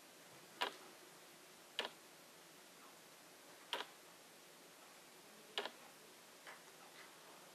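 About five faint, sharp little clicks at uneven intervals over quiet room tone, from fishing line and a swivel being worked between the fingers while a knot is tied.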